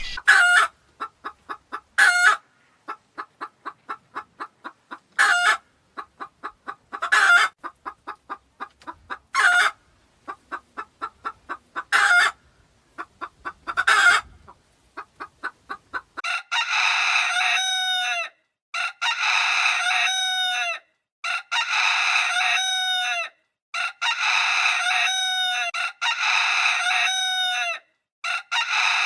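Domestic chickens calling: rapid clucking broken by a loud sharp call about every two seconds, then, after a cut about sixteen seconds in, a run of longer, fuller calls repeated every two seconds or so.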